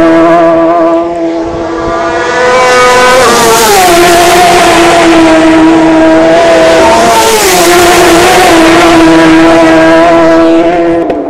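Racing motorcycles at full speed on the TT road course, about 140 mph, the engine note loud and steady. It drops in pitch as one bike passes close about three seconds in and another about seven seconds in.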